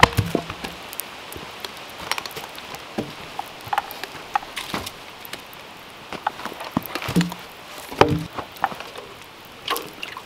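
Wood fire crackling and popping in a steel fire pit, with heavy knocks as logs are moved over the pit, the loudest at the very start and again about three-quarters of the way through.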